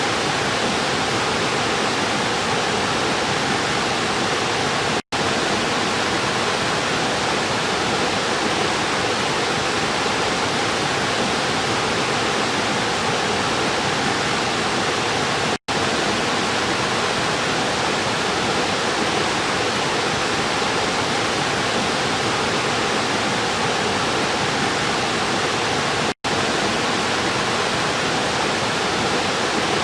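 River water rushing in a steady, even wash of noise, cut off for an instant three times, about ten seconds apart.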